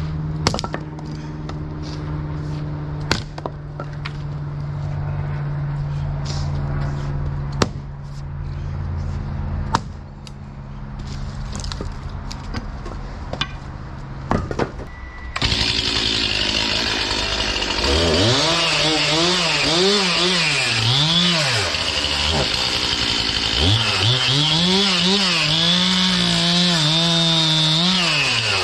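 Stihl MS 261 C two-stroke chainsaw. For the first half a low engine hum runs under scattered sharp knocks of wood. About halfway the saw is revved up and cuts into sugar maple, its pitch sagging and recovering again and again as the chain loads and clears in the cut.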